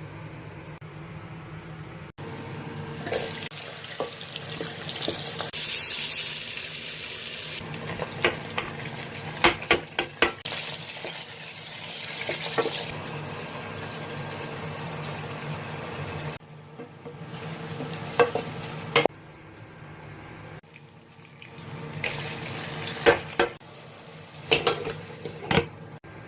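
Cooking in a pot: a spoon stirring and clinking against the pot while food sizzles, with running or poured water among it. The background changes abruptly several times between short clips.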